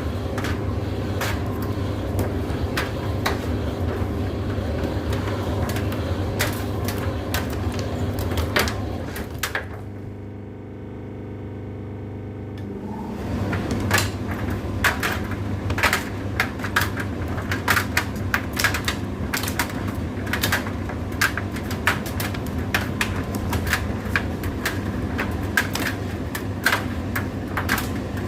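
Indesit IDC8T3 condenser tumble dryer running: a steady motor hum with the load knocking and clattering irregularly in the turning drum. The knocking stops for about three seconds partway through, leaving only a quieter hum, then resumes.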